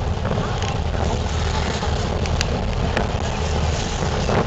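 Steady low rumble of a boat's engine mixed with wind buffeting the microphone.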